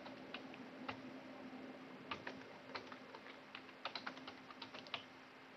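Faint, irregular keystrokes on a computer keyboard as an email address is typed, over a faint steady hum.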